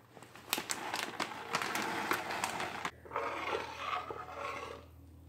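Plastic bag of shredded cheddar crinkling and rustling as it is shaken out into a steel pot of cream sauce, a dense run of clicks and rustles. From about three seconds in, quieter scraping of a spoon stirring the thick cheese sauce.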